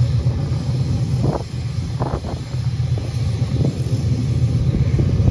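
Steady low rumble of farm machinery running: the KC Bruiser 1250 roller mill driven by a JCB Fastrac tractor, with a few short rustles of rolled grain sifting through a hand.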